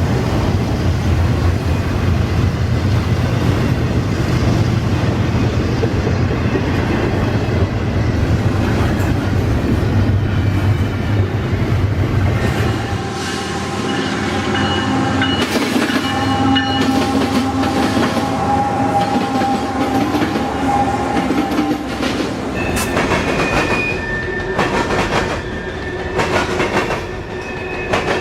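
Full-size train sound effect: a steady low rumble for about the first half, then wheels clicking over rail joints with sustained pitched tones above.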